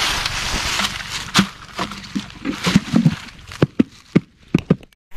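Dry fallen leaves crunching and rustling underfoot and as gear is set down on the forest floor, ending in a quick run of sharp clicks and knocks.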